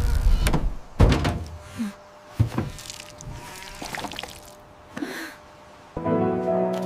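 A few sudden thuds and knocks, the loudest at the start and about a second in, with others near the middle. Background music comes in near the end.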